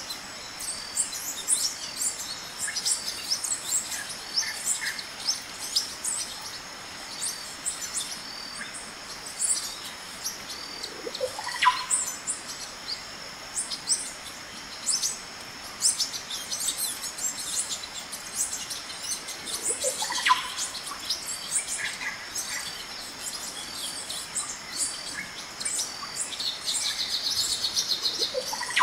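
Birds chirping and calling in a busy chorus over a steady high buzz. Twice a call sweeps sharply up in pitch, and a fast high trill comes near the end.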